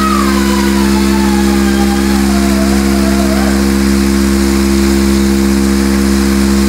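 Mirka random orbital sander running at a steady pitch with its disc against the body panel, sanding body filler and paint back to bare steel.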